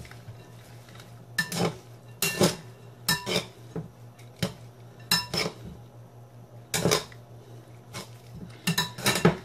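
Metal utensils clinking and scraping against a glass salad bowl while tossing a dressed noodle and vegetable salad. The clinks come irregularly, often in pairs, each with a short glassy ring, with a quick flurry near the end.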